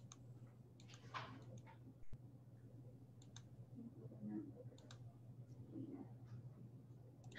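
Near silence: faint room tone with a steady low hum and scattered soft clicks, the plainest about two seconds in.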